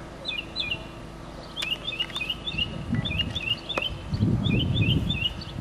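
A songbird chirping over and over in quick runs of short falling notes, with a couple of sharp clicks partway through. A low rumbling noise comes in about three seconds in and is the loudest thing near the end.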